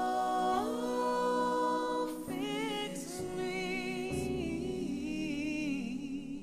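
Gospel music: voices singing and humming long held notes with vibrato, a cappella, with no clear words.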